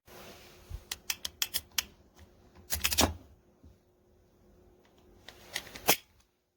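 Sharp clicks and taps from small hard parts being handled, in three groups: a quick run about a second in, a loud cluster near three seconds, and another near six seconds.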